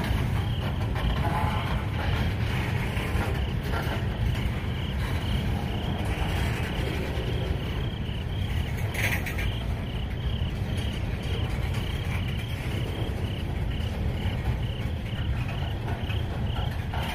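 Rumble of freight cars' steel wheels rolling over the rails as tank cars and a coil car pass close by, with one short sharp noise about nine seconds in. Insects chirp steadily behind it, about two chirps a second.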